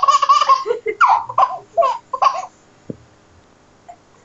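Baby laughing in a run of high-pitched bursts, dying away about two and a half seconds in, followed by a faint knock.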